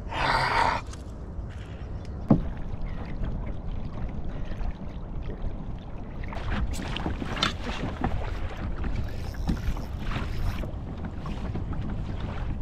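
Water sloshing and lapping against a kayak's hull over a steady low wind rumble on the microphone. A short splash-like rush comes right at the start, a single sharp knock about two seconds in, and a run of short splashes and knocks in the second half.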